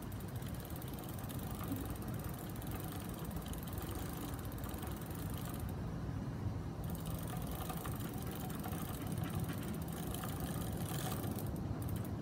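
Rockrider mountain bike's chain running steadily as the cranks are turned by hand, the chain drawn through a rag to wipe off degreaser.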